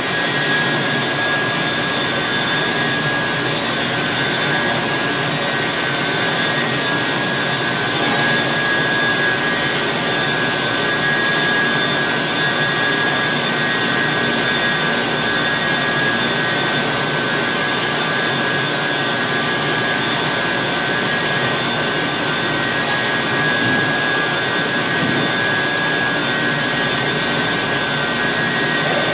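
Automatic powder-liquid intensive mixer running, churning a batch of white powder: a loud, even whir with a steady whine on top.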